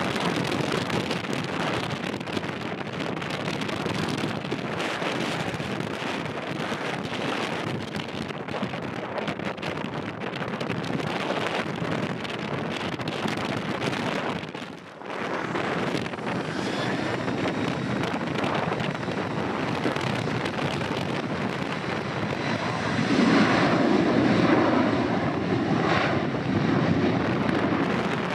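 Boeing 737-800's CFM56 jet engines running on the runway, with wind buffeting the microphone. From about halfway through, a rising whine comes in, and the engines get clearly louder near the end as they spool up to take-off power.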